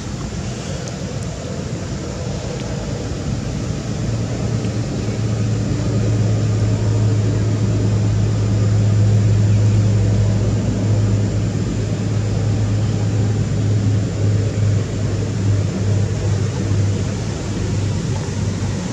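Steady low engine hum over a hiss of background noise, swelling about a third of the way in and easing off toward the end.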